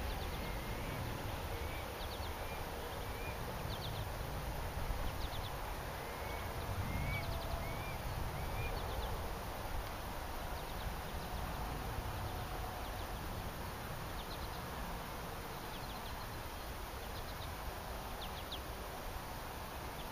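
Outdoor ambience: a low background rumble, with a bird repeating a short rising chirp about once a second in two runs, and faint high ticking calls scattered through.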